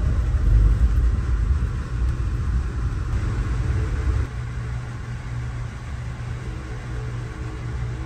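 Low, steady rumble of a vehicle's engine and running gear. It is heavier for the first few seconds, then eases about four seconds in to a quieter, even hum.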